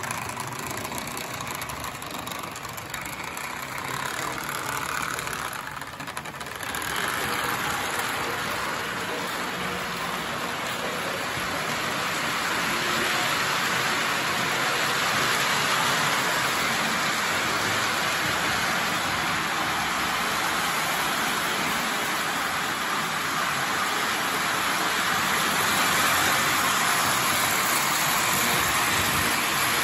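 Lionel 2035 toy steam locomotive running with a long train of metal scout cars: the steady whir of the electric motor and the rattle of metal wheels on the track. It gets louder from about seven seconds in.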